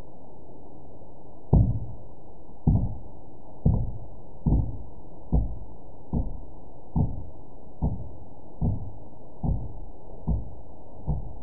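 A steady series of dull thumps, about one a second, starting about a second and a half in, the first the loudest and the rest gradually fading and coming a little faster, over a steady hiss.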